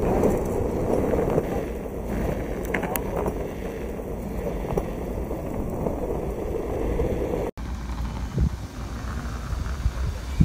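Electric skateboard rolling over pavement: a steady rumble of the wheels on the ground, with wind on the microphone. About three-quarters of the way through the sound cuts sharply and a gustier rumble with a few light knocks takes over.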